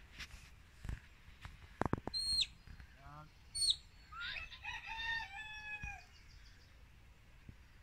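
A rooster crowing: one drawn-out crow of about two seconds that rises, holds and falls away, about halfway through. It comes after two short high whistle notes, each dropping at the end, and a few sharp thumps near the start.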